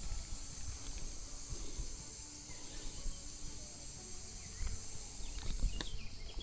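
Steady high-pitched insect chorus in summer vegetation, with low rumbling on the microphone underneath and a few short chirps near the end.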